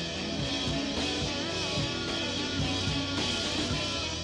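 Background rock music.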